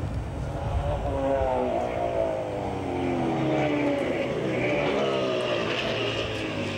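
Race car engines running in the paddock: a steady low rumble, with one engine note falling in pitch over a couple of seconds, then another rising near the end.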